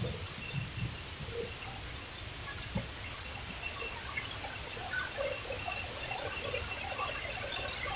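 Faint wildlife ambience: a steady high-pitched drone with scattered short calls.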